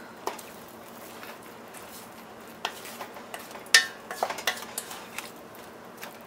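Wooden spatula stirring thick grated-carrot halwa in a stainless steel kadai, with scattered scrapes and knocks against the pan. The loudest knocks come just before four seconds in and again around four and a half seconds.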